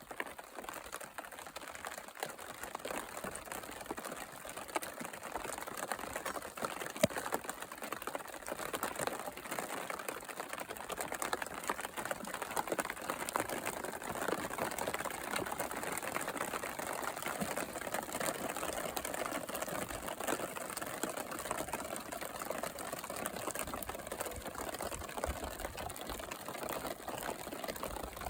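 Rain falling in big, scattered drops, a dense, steady patter of drops hitting nearby surfaces.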